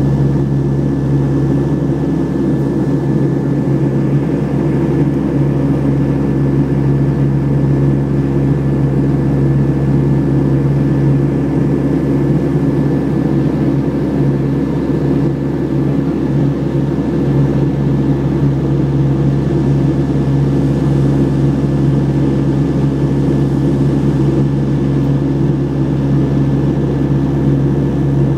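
Turboprop airliner in cruise, heard from inside the cabin beside the propeller: a loud, steady drone with a deep, even propeller hum and a faint high whine above it.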